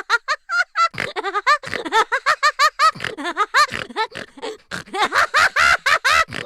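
Cartoon character laughter: a fast, high-pitched run of short "ha" syllables, several a second, getting louder about five seconds in.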